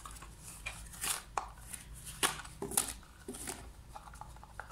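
Nested plastic measuring cups being unpacked and handled: a handful of sharp, irregular clicks and knocks of plastic against plastic.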